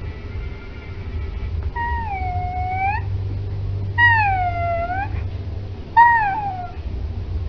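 Pomeranian howling in three drawn-out calls about two seconds apart, each wavering in pitch, the second and third the loudest.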